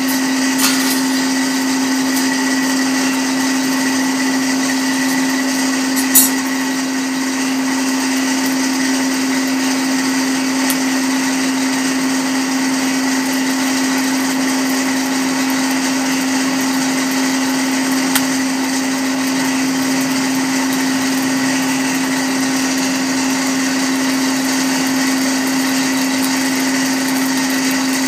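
Electric forge blower set into the side of the blacksmith's furnace, running with a steady hum and whir. A few brief clicks sound over it, the loudest about six seconds in.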